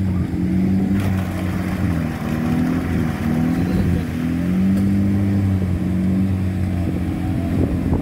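Nissan Terrano 4x4 engine labouring under load as it climbs out of a river up a steep muddy bank, revs rising and falling.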